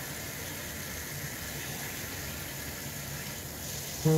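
Steady, even background hiss with no distinct events; a voice starts right at the end.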